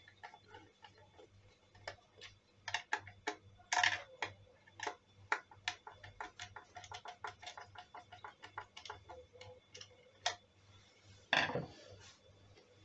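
Irregular small clicks and taps of a screwdriver turning the terminal screws in the plastic housing of a Blagdon PowerSafe 5 pond electrics box, with a louder knock near the end.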